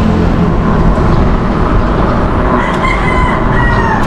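Wind rushing steadily over an action camera's microphone while cycling, with a rooster crowing about two and a half seconds in, one drawn-out call that falls away at the end.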